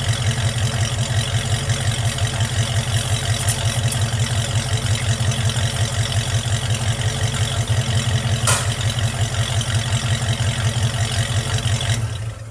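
Truck engine idling steadily with an even pulse, warm and running smoothly now that its vacuum leak is fixed; the sound stops abruptly near the end.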